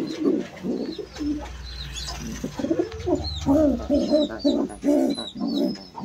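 Fantail pigeon sitting on its chicks, cooing in a quick run of short notes that rise and fall, about two to three a second in the second half. Thin high chirps come from other birds.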